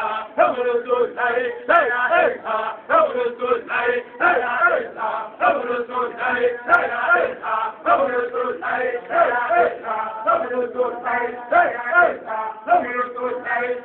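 Men's voices chanting an Islamic devotional chant, a short phrase sung over and over in a steady, repeating rhythm over a held drone-like note.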